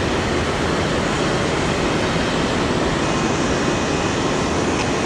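Water pouring over a dam spillway: a steady, loud, even rushing noise.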